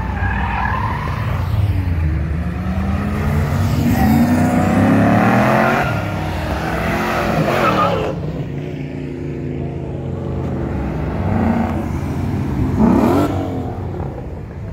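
Cars accelerating hard away from the kerb one after another, engines revving up through the gears. The loudest run is about four to eight seconds in, and another short rev comes near the end.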